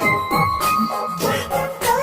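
Upbeat children's song music with a steady beat and jingle-bell tinkles.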